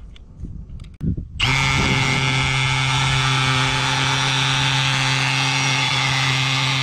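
Cordless drill screwing a long steel screw-in tent peg into gravel ground. A few light handling clicks come first as the peg is fitted to the chuck. About a second and a half in, the motor starts and runs at a steady pitch, and the peg goes in without trouble.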